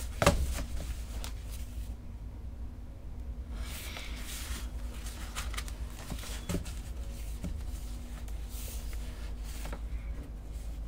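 Stacks of folded paper signatures being handled and squared up, giving short bursts of paper rustling, with a thump at the start. A faint steady low hum runs underneath.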